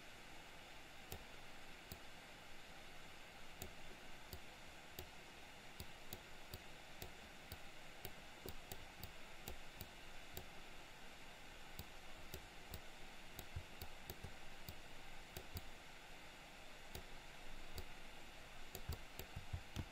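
Faint, irregular computer mouse clicks over a steady low hiss.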